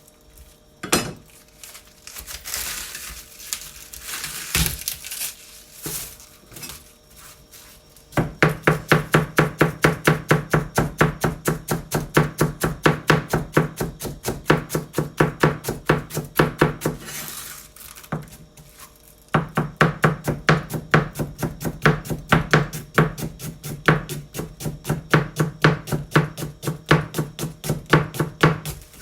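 A kitchen knife finely shredding cabbage on a cutting board: rapid, even chopping strokes, each a knock with a low thud. The first several seconds hold irregular rustling and a few knocks as the cabbage is handled. The chopping breaks off for about a second around two-thirds through, then resumes.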